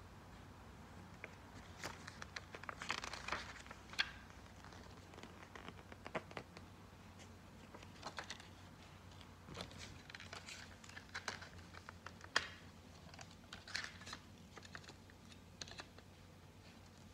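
Handling of a CD case and its packaging: irregular light plastic clicks and taps mixed with short crinkling rustles, coming in clusters with pauses between them.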